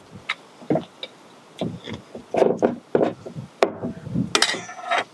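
Irregular clicks, knocks and short scrapes of bottles and a measuring spoon being handled while cooking wine is measured out.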